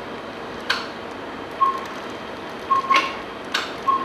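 About six irregular short clicks, each with a brief high ring, as the draped da Vinci Si robotic arm is handled and brought onto the cannula while docking.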